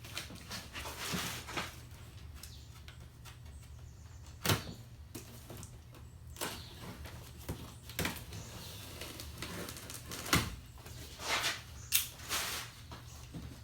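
A cardboard box being opened and its packing handled: scattered knocks and short scraping rustles at irregular moments, the sharpest about four and a half, eight and ten seconds in, over a low steady hum.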